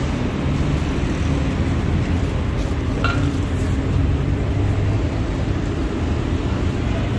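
Steady street-traffic rumble: vehicle engines running, with a brief high squeak about three seconds in.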